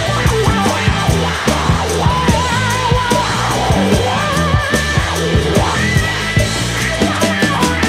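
Loud rock background music with a steady drum beat, bass and a wavering high melody line.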